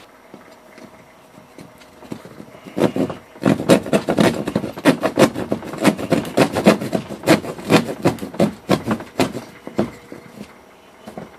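Hand drywall jab saw sawing through perforated hardboard pegboard in short, quick back-and-forth strokes. The strokes start about three seconds in and ease off shortly before the end.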